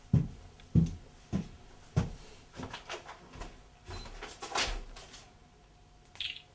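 A run of dull thumps about every half second, then lighter irregular knocks and clatter, and a brief high squeak near the end: indoor handling or knocking sounds.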